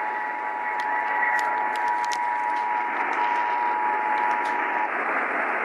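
Emergency Alert System two-tone attention signal, a steady pair of tones sounding together, received over radio through heavy static hiss. The tone cuts out about five seconds in.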